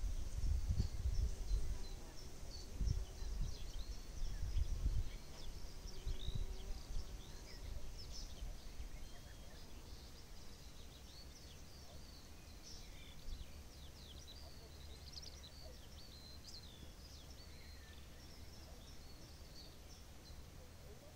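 Many small birds chirping and trilling, short overlapping calls throughout. In the first few seconds, gusts of wind buffet the microphone, then die down to a faint steady rumble.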